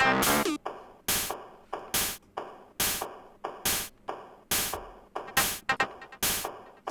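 Electronic beat from a Teenage Engineering OP-Z sample track and PO-24 Office pocket operator: a sharp, hissy percussion hit a little under once a second with softer sampled hits between them. Near the start, a pitched sample slides downward.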